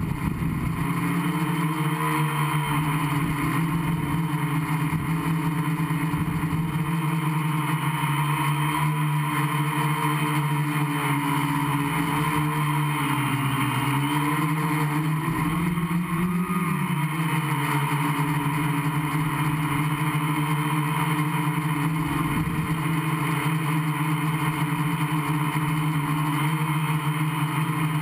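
Gaui 500X quadcopter's four electric motors and propellers running steadily, heard from a camera mounted on the frame. The pitch dips and rises briefly around the middle as the throttle changes.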